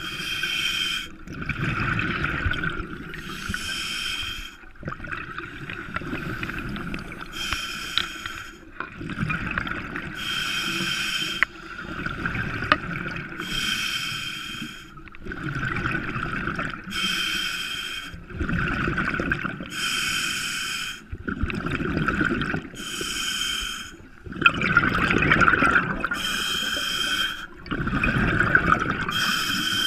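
Scuba diver breathing steadily through a regulator, about once every three seconds: each breath is a hissing inhale with a faint whistle, then a low rush of exhaled bubbles.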